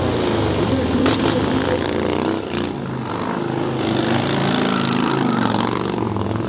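Cruiser-style motorcycle engine running at low revs, its pitch wavering up and down as the rider works the throttle, with a brief sharp crack about a second in.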